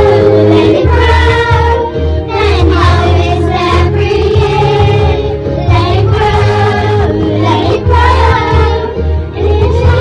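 A group of children singing together in unison over instrumental accompaniment with a steady bass line.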